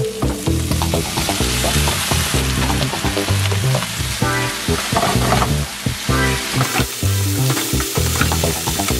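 Sliced meat and shredded cabbage stir-frying in a nonstick wok: steady sizzling, with a spatula scraping and tossing the food. Background music with a bass line runs underneath.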